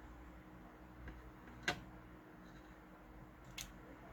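Small clicks from tools and wire being handled while a wire is tinned with solder: one sharp click about one and a half seconds in and a fainter tick near the end, over a low steady hum.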